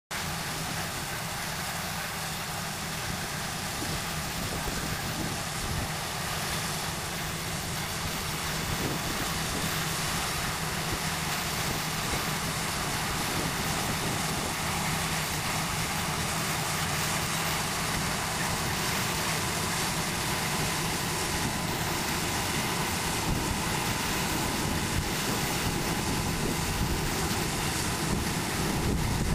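John Deere 9660 STS combine running steadily while harvesting soybeans: a continuous low engine hum and machine rush with a faint high whine, growing slightly louder.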